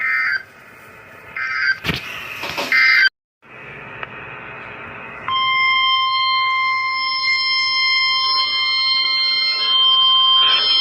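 Emergency alert broadcast: three short, harsh digital data bursts (SAME alert code), a brief drop-out, then about five seconds in a steady, loud, high single-pitched alert tone that holds on.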